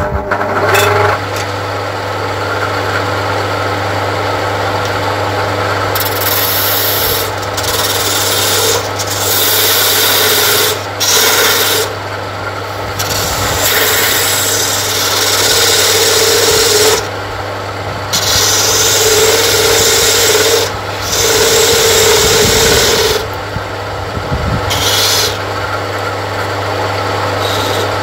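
Homemade wood lathe, driven by a single-phase 0.27 kW motor, starts and runs with a steady hum. A hand-held chisel cuts the spinning wooden blank in long scraping passes broken by short pauses.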